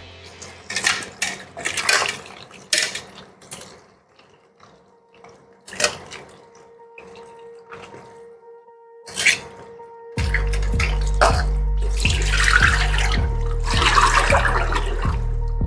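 Tap water running into a steel bowl while hands stir and rub onions and potatoes, in irregular bursts of splashing. About ten seconds in, background music with a steady repeating bass comes in and plays over the splashing.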